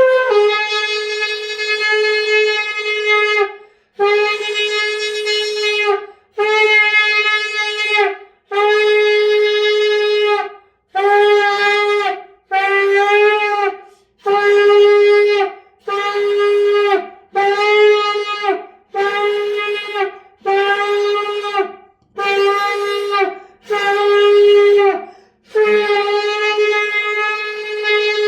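A shofar (ram's horn) blown in a long series of about fourteen blasts, all at the same pitch. The first is the longest, about three seconds, and the rest run one to two seconds each with brief breaks between them, each dropping slightly in pitch as it ends.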